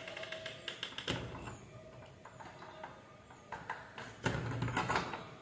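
Rustling and knocking of a handheld camera being moved about, with a louder scraping rustle about four seconds in.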